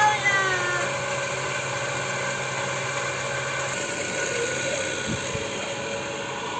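Steady mechanical hum. One of its lower tones drops out a little over halfway through. A high, bending voice, like a child's squeal, is heard briefly at the start.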